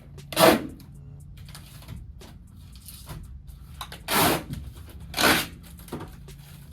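Tape being pulled off a roll in three short ripping pulls, about half a second in, about four seconds in and about five seconds in, over a faint steady low hum.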